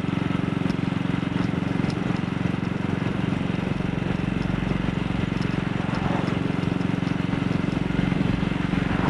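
AJS Model 8 motorcycle engine running at steady revs, its exhaust note even and unchanging throughout.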